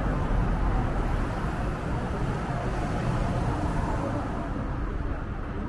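Street traffic: a steady low rumble of passing vehicles that slowly fades.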